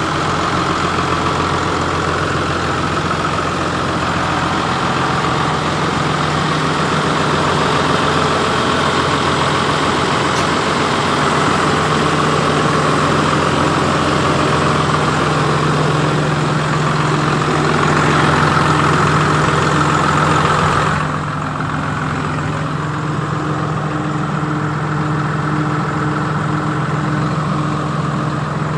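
New Holland TM140 tractor's six-cylinder diesel engine idling steadily with a constant low hum. About three quarters of the way through the sound turns duller, heard from inside the closed cab.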